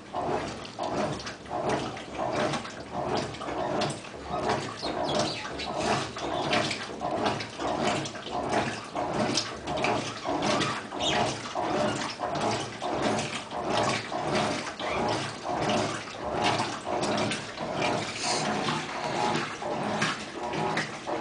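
Mabe 15 kg washing machine in its wash cycle, water and clothes sloshing in the tub in a steady rhythm of about two swishes a second as the drum's agitation reverses back and forth.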